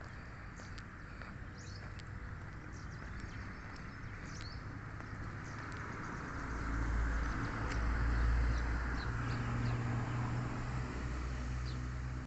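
Sparrows and other small birds chirping in short scattered calls, with a motor vehicle's engine running low in the background, getting louder from about halfway through until it is the loudest sound.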